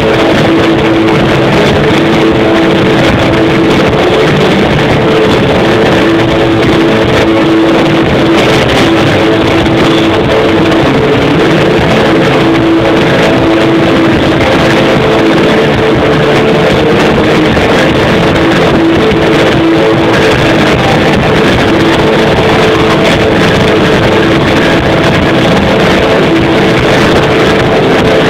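Live rock band playing a loud, droning passage with held distorted notes, recorded from the crowd on an overloaded microphone so the whole sound is harsh and distorted.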